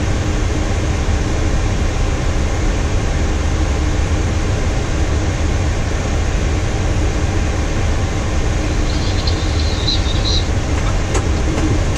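Steady low rumble and hiss on a Boeing 737-800 flight deck on the ground, from the running engines and air conditioning.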